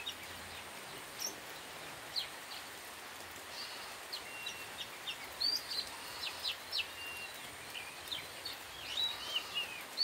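Birds chirping in short high calls, a few at first and more often from about the middle on, over a steady hiss of light rain.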